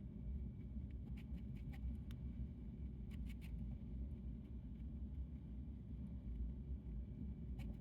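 Hamster nibbling on pumpkin: faint clusters of small clicks about a second in, around three seconds in, and again near the end, over a steady low hum.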